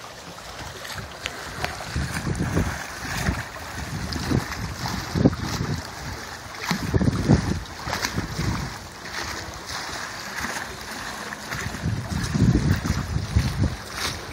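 Wind buffeting the phone's microphone in irregular gusts, over the wash of choppy water around the broken dock and pilings.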